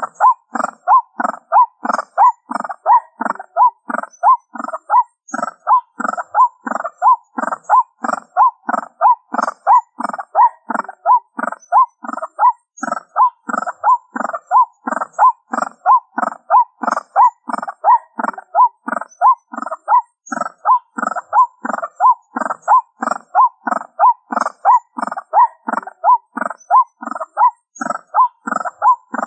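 White-breasted waterhen calls, a harsh two-part 'ruak' repeated over and over at an even pace of about two to three a second, played from a small speaker as a lure call.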